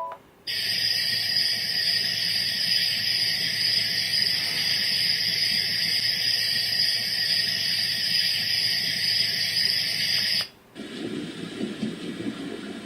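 Dreamegg D3 white noise machine playing a steady hiss. About ten seconds in, the hiss cuts off and, after a brief gap, a different, lower fluctuating noise sound begins.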